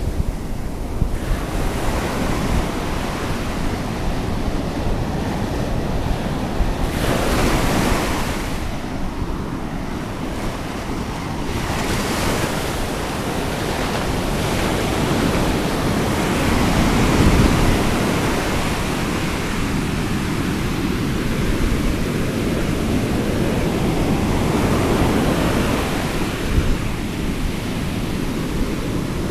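Ocean surf washing up and draining back over the sand, swelling several times, with a steady rumble of wind on the microphone underneath.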